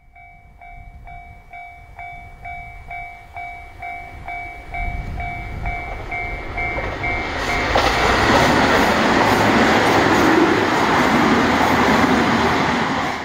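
A railway level-crossing warning bell rings steadily at about two strokes a second. About eight seconds in the bell gives way to a diesel train approaching and passing, its running and rail noise growing louder and loudest near the end.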